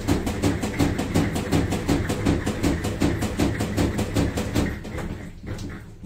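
Panasonic NA-F65G7 top-loading washing machine running with a rhythmic knocking, about four knocks a second over a steady low hum, stopping about five seconds in: the machine's fault noise.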